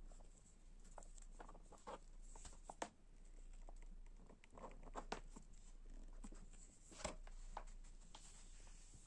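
Faint, scattered small clicks and light rustling of a plastic air-valve adapter and hose being handled against an inflatable mat, over a faint steady hum.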